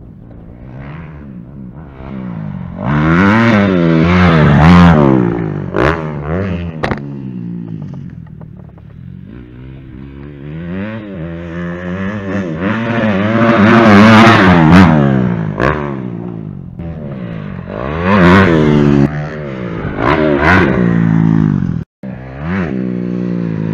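Motocross dirt bikes revving hard as they ride past on a dirt track, engine pitch climbing and dropping with throttle and gear changes, several passes growing loud and fading away. The sound cuts out for an instant near the end.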